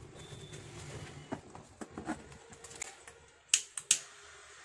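Desoldering pump worked on a printer power-supply circuit board while the faulty capacitor and MOSFET are removed: small clicks and taps of handling, then two sharp snaps about three and a half seconds in.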